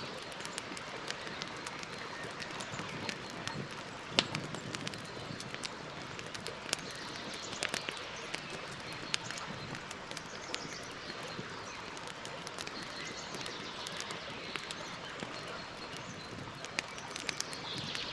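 Campfire crackling: a steady hiss of burning wood with frequent sharp pops, the loudest about four seconds in.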